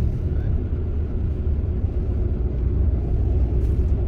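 Steady low drone of a coach bus cruising, engine and tyre noise heard from inside the passenger cabin.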